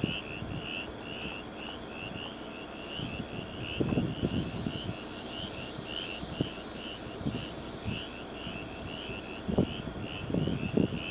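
Outdoor evening chorus of insects chirping steadily: rapid, repeated mid-pitched chirps with a separate higher, evenly spaced pulse about twice a second. Low rumbling swells come through about four seconds in and again near the end.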